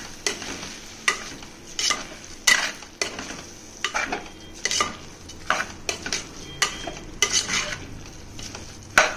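Slotted metal spatula stirring soaked rice into frying masala in an aluminium pressure cooker: uneven scrapes and clinks against the pot about once a second, over a soft sizzle.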